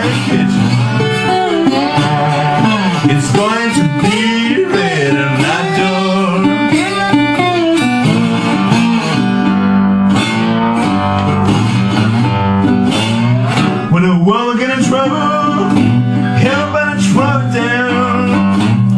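Acoustic guitar playing a slow blues, with a picked bass line under a melody whose notes bend and glide up and down.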